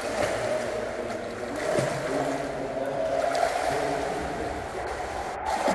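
Water splashing continuously as a swimmer swims backstroke, her arms stroking and legs kicking, against the noise of an indoor pool hall.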